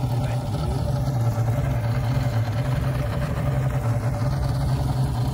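Johnson outboard motor running steadily, a low even engine hum as the boat pulls away under way.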